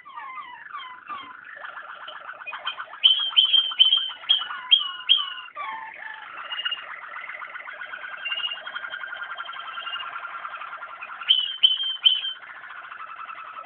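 Waterslager (Malinois) canary song: continuous rapid rolling trills, broken by loud, bright, repeated ringing notes in bursts about three to five seconds in and again near the end.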